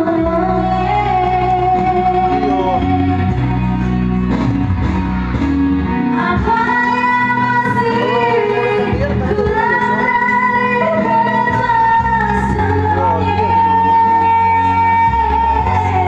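A song: a singer holding long, drawn-out notes over guitar and bass accompaniment.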